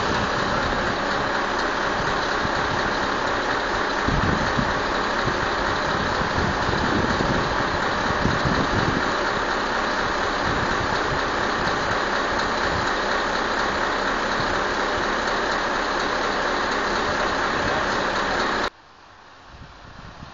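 A vehicle engine running steadily at idle, as on a truck working a crane arm, with a dense even noise that cuts off suddenly near the end.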